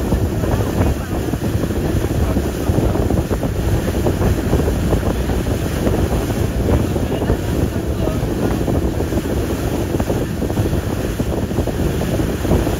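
Wind buffeting the microphone on a moving boat, over a steady rush of water, as a loud, gusty low rumble throughout.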